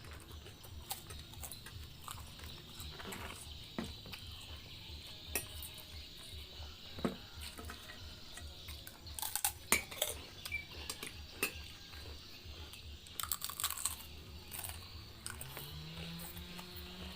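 Cutlery clinking and tapping against a dish while eating fried noodles, in scattered light clicks with two short busy flurries. A low steady hum comes in near the end.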